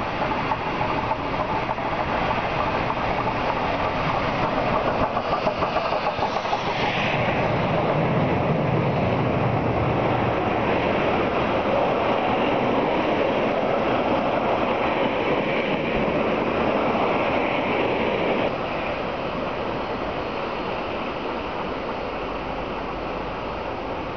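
NZR Ja-class 4-8-2 steam locomotive and its passenger carriages rolling past close by. The rumble swells as the engine goes by, holds while the carriages pass, drops suddenly about three-quarters of the way through as the last carriage clears, then fades as the train draws away.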